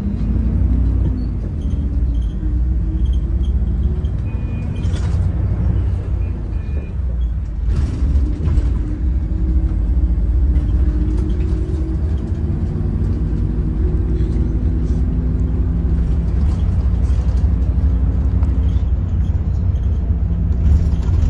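Daewoo FX116 coach's diesel engine running under way, heard from inside the passenger cabin as a steady low rumble whose pitch rises and falls with the bus's speed. There is a brief sharp sound about five seconds in and another near eight seconds.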